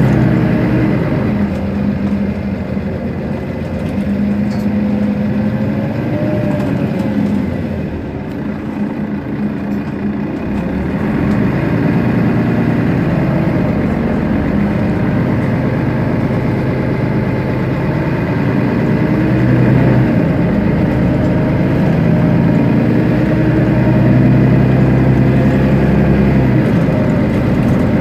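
Mercedes-Benz Citaro city bus's rear-mounted engine idling while the bus stands still, its note shifting slightly a few times.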